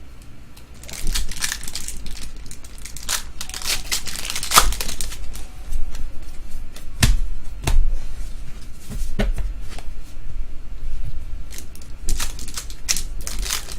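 Trading card packs being opened and the cards handled: crinkling of pack wrappers with repeated sharp snaps and clicks as cards are flipped through.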